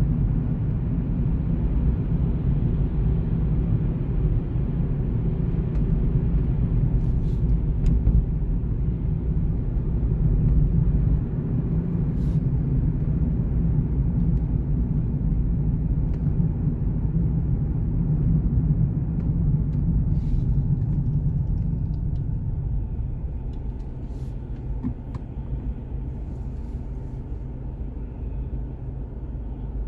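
Steady low rumble of a car's engine and tyres on the road, heard from inside the car, getting a little quieter about two-thirds of the way through.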